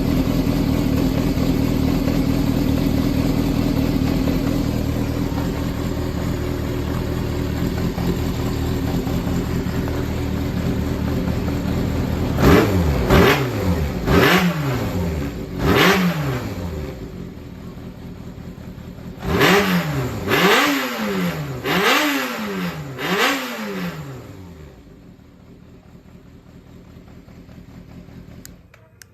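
Yamaha XJR400 air-cooled inline-four engine idling steadily, then revved in two sets of four quick throttle blips, each rising and falling in pitch, and then shut off about 24 seconds in. It runs as the seller describes it: free of abnormal noise.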